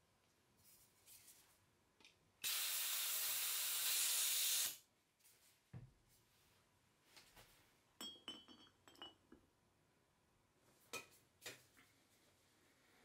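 Pressurised airsoft gas hissing out loudly for about two seconds, followed by a run of light clicks and glassy clinks as parts are handled.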